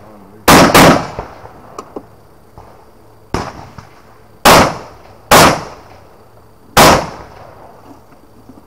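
Rifle shots fired one at a time, each a sharp crack with a short ringing tail: two in quick succession about half a second apart, then, after a pause with one fainter crack, three more spaced about a second to a second and a half apart.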